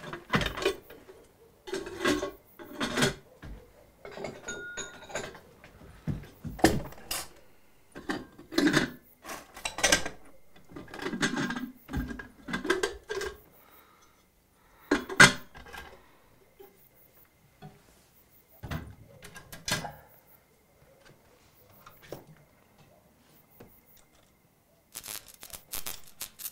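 Kitchen clatter from putting a kettle on for tea: an enamel kettle and its lid being handled, with dishes and other things knocked about, as a run of separate knocks and clinks that grows sparser in the second half.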